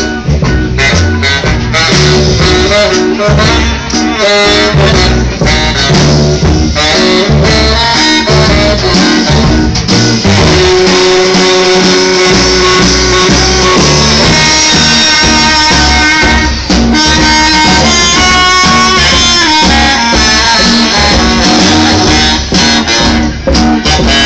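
Live swing band playing an instrumental passage: saxophones over upright bass and drum kit.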